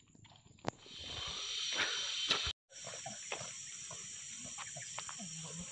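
Soft footsteps on a dirt track, then a steady high hiss of outdoor ambience that sets in about a second in and runs on, broken by a brief dropout near the middle, with faint footsteps under it.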